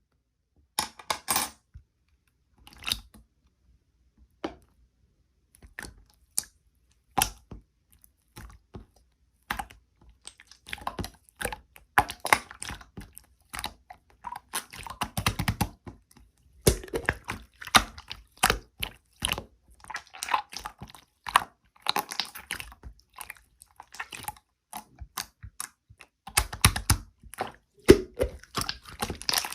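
Irregular clusters of small clicks and crackles from something being handled at close range, sparse at first and coming thick and fast from about ten seconds in.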